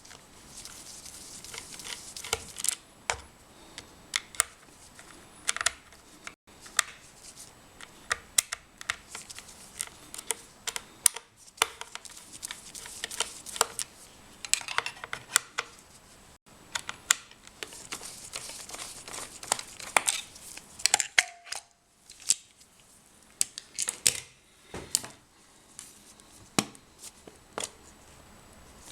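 Hands opening the plastic case of a UNI-T UT61E digital multimeter: irregular sharp clicks and knocks with short bursts of scraping and rustling.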